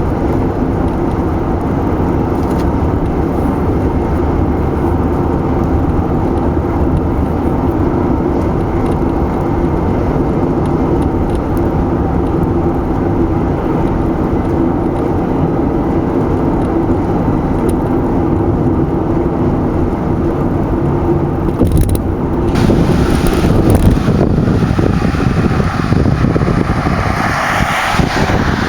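Steady road and engine noise of a car driving along a road, heard from inside. About 22 seconds in, it gives way to a louder, brighter rushing sound, like wind on the microphone.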